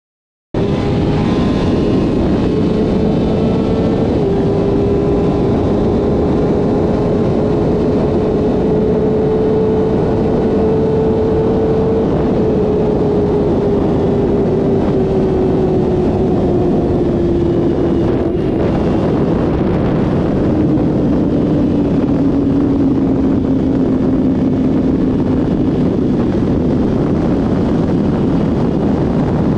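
Yamaha R6 sport bike's inline-four engine running at high revs at speed, under heavy wind rush on the microphone. It starts after a brief silent gap and steps down in pitch once about four seconds in. It then climbs slightly and, over the second half, slowly winds down in pitch as the bike eases off.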